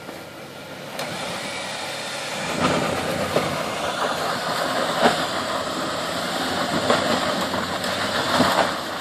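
Off-road 4x4's engine under light throttle while crawling over rock; it grows louder about a second in and again about two and a half seconds in. Several sharp knocks are heard as the vehicle works over the ledge.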